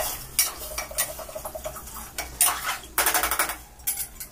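A metal spoon clinking and scraping against an aluminium pressure cooker as vegetables are stirred in it, in a run of uneven clinks.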